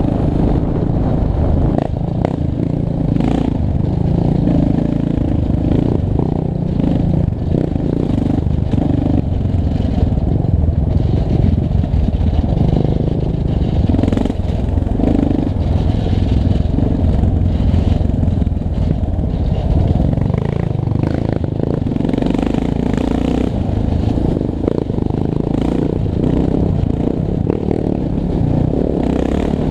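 Yamaha Raptor 700 sport quad's single-cylinder four-stroke engine running hard along a dirt trail, its pitch rising and falling with the throttle, heard from the rider's seat. Knocks and rattles from the machine bouncing over the rough ground run through it.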